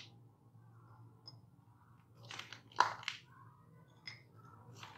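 Hardened peanut-jaggery chikki cracking and scraping as pieces are prised loose with a knife from a steel tray: a few short crunchy cracks a little after two seconds, the sharpest near three seconds, and one more near the end.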